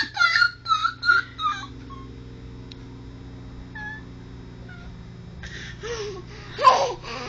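Baby babbling a quick string of high-pitched "ta-ta-ta" syllables that stops about a second and a half in. A quiet gap with a couple of faint squeaks follows, then more vocal sounds near the end, the loudest shortly before it ends.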